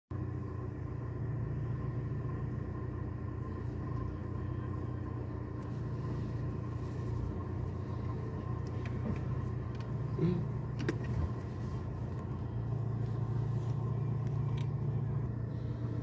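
Car engine running as the car drives slowly over a dirt road, heard from inside the cabin as a steady low hum. A few light knocks come about ten seconds in.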